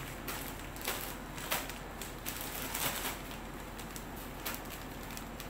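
Clear plastic bag crinkling and rustling in a run of irregular crackles as it is worked up and off a freshly potted palm seedling.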